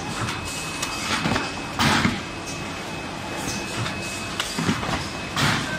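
Book-type rigid box assembly machine running: a steady mechanical hum broken by short hisses of air from its pneumatic cylinders, the loudest about two seconds in and near the end.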